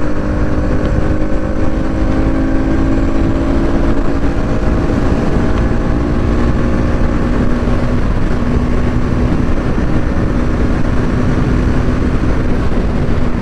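Bajaj Pulsar NS200's single-cylinder engine pulling at highway speed, with heavy wind rush on the helmet microphone through the open visor. The engine note holds steady, then settles a little lower about halfway through.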